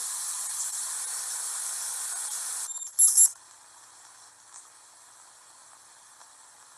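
Steady static hiss of VHS-style analog-horror footage that cuts off abruptly a little under three seconds in, followed by a brief, loud burst of high-pitched static, then only a faint hiss.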